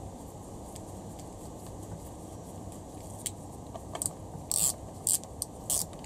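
Short, high, scratchy clicks as bolts are fitted by hand into the Honda B18C4's plastic rear timing cover. They come as a quick run of about half a dozen in the second half.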